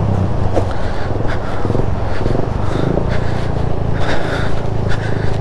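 Motorcycle engine running steadily under load as the bike pulls up a steep, rough track, with scattered clattering over the engine note.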